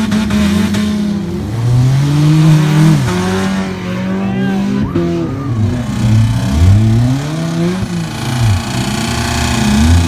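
Several demolition derby cars' engines revving up and easing off, their rising and falling pitches overlapping one another.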